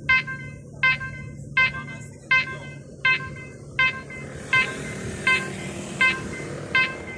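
Railway level-crossing warning bell dinging steadily, about ten strikes at a little over one a second, as a train approaches. From about halfway through, the noise of the oncoming train rises beneath the bell.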